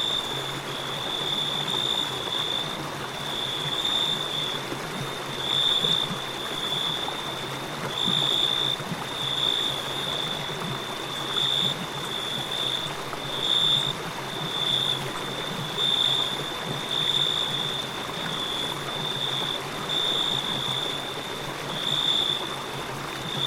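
Crickets trilling in a high, steady tone that swells louder about once a second, over the continuous rush of a flowing river.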